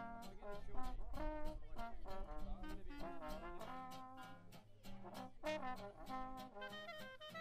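Small jazz band playing: trombone and clarinet carry the tune over an acoustic guitar strumming chords on a steady beat.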